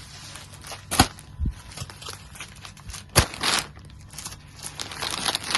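Folded sarees in their packaging being handled: crinkling and rustling, with two sharp knocks, one about a second in and one just after three seconds, the second followed by a short rustle.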